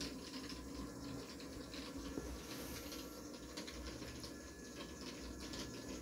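Budget Daiso robot vacuum running: a steady faint whirr of its small motor and brushes, with scattered light ticks.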